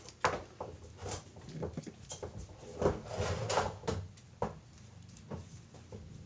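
Hands winding fine copper magnet wire onto a small Mini 4WD motor armature close to the microphone: irregular clicks, taps and rubbing, busiest around the middle.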